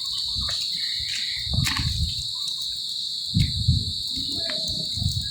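A steady, high-pitched chirring of crickets, with a few low dull thumps over it.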